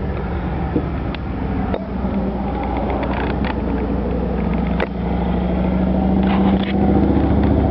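A motor vehicle's engine running, a steady low hum that grows gradually louder, with a few sharp clicks along the way.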